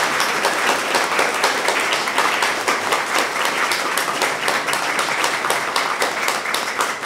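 Audience applauding: steady, dense clapping that keeps up throughout.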